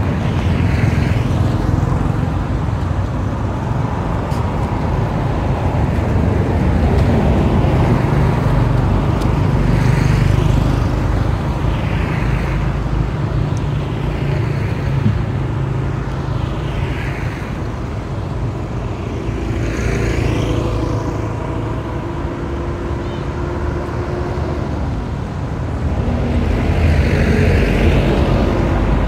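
Road traffic: a steady low rumble with cars and motorbikes passing every few seconds, some with a falling pitch as they go by.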